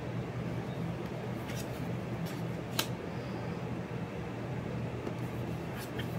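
Oracle cards being turned over and laid down on a wooden table: a few light card clicks and taps, the sharpest about halfway through, over a steady low hum.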